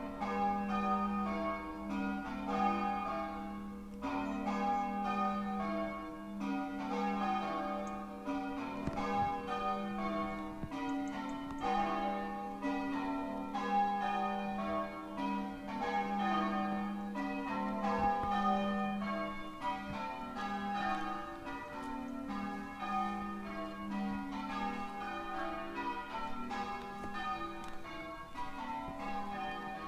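Church bells ringing from the tower: a steady, even succession of struck bell notes, each ringing on into the next.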